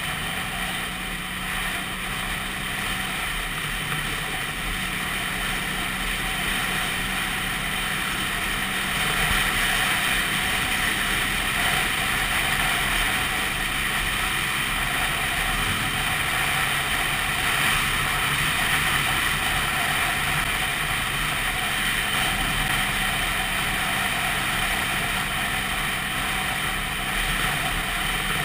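Vespa PX200 scooter's two-stroke single-cylinder engine running while the scooter rides along, under steady wind and road noise. It grows louder about nine seconds in.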